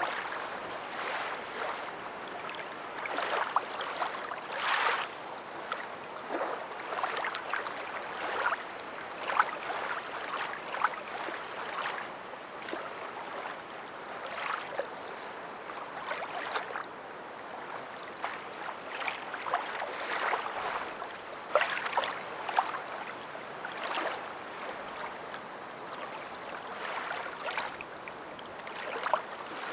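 Water lapping and sloshing, with irregular small splashes.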